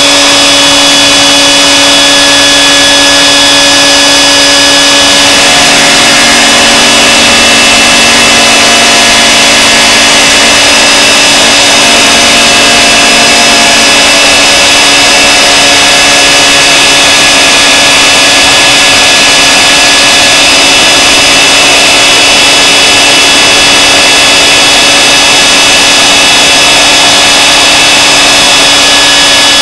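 Vacuum cleaner running at full speed through a dust-extraction shroud, a loud steady motor whine. A second, lower motor note comes and goes between about six and seventeen seconds in.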